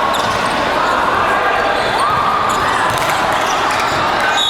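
Basketball bouncing on a gym court during a game, over a steady din of voices from players and onlookers, with short high squeaks and clicks.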